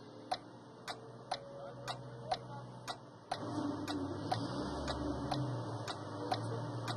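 Fairground pipe organ idling between tunes: its mechanism ticks about three times a second, and a low steady hum comes in about three seconds in.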